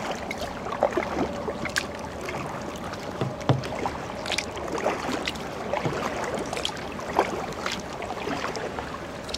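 Kayak paddling: irregular paddle splashes and drips, with light rain beginning to fall on the water.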